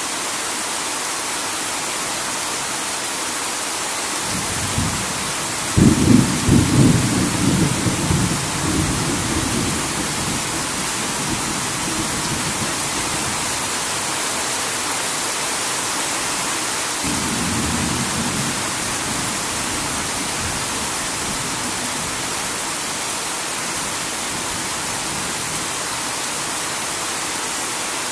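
Heavy rain falling steadily. About six seconds in, a loud thunderclap rolls and fades over several seconds, and a fainter rumble of thunder follows near the middle.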